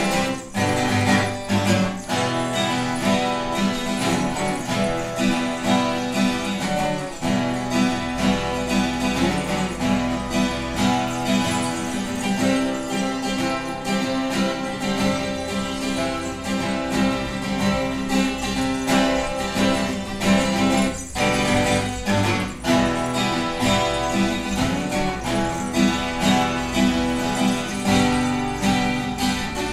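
Twelve-string acoustic guitar played live in a Spanish style, with strummed and plucked chords throughout.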